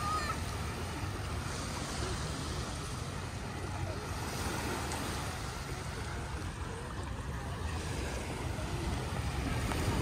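Small waves breaking and washing up a sandy beach: a steady hiss of gentle surf.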